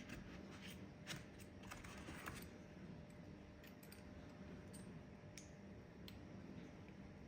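Faint, irregular clicks and taps of metal hand tools, a ratchet and its sockets, being handled and tried out.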